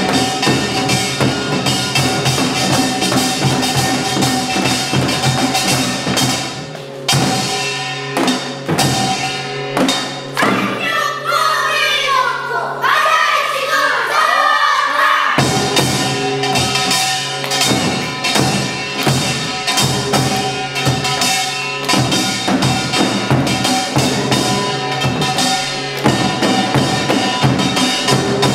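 Children's seated samulnori ensemble playing: a kkwaenggwari small gong with janggu hourglass drums and buk barrel drums beating a dense rhythm. About ten seconds in, the drums drop out and voices sing for about five seconds, then the drumming resumes.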